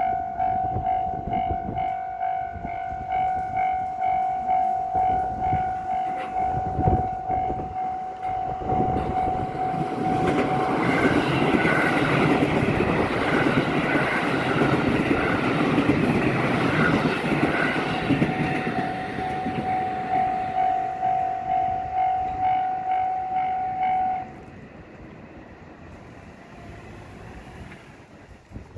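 Japanese level-crossing warning bell ringing in a fast, steady repeated ding while a train runs over the crossing, its rumble and wheel noise swelling to be loudest in the middle and then fading. The bell keeps ringing after the train has gone and cuts off near the end.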